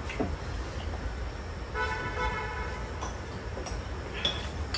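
Chopsticks and spoons clicking against bowls and dishes at a meal. Around the middle, one steady horn-like tone sounds for just under a second.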